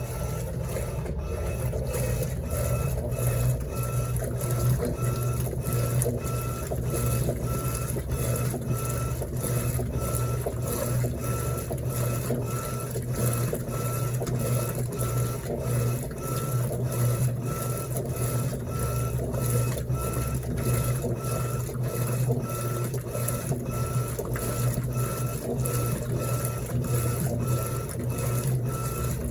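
Electrolux LTE12 top-loading washing machine agitating a load: a steady motor hum with a regular beat a little over twice a second as the agitator swings back and forth, with a faint whine pulsing in step.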